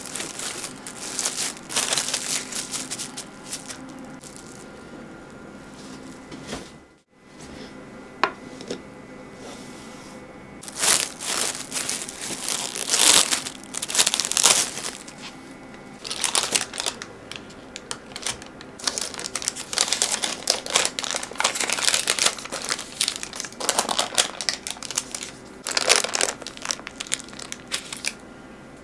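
Plastic cling wrap crinkling in repeated bursts as it is pulled over a metal loaf pan and tucked around its sides.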